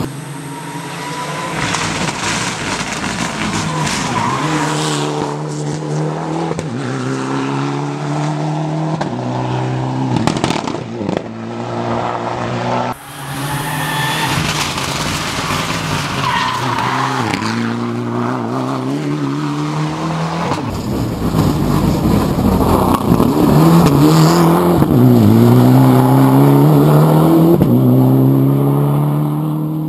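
Rally car engine revving hard up a mountain road, its pitch climbing and then dropping sharply at each gear change, over several passes. It is loudest near the end.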